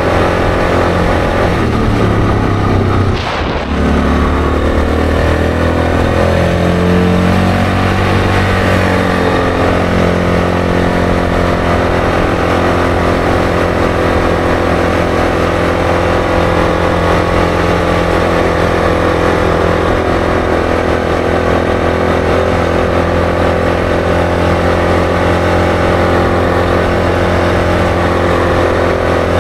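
ATV engine running while being ridden. It eases off briefly about three seconds in, rises in pitch over the next few seconds as it picks up speed, then holds a steady drone.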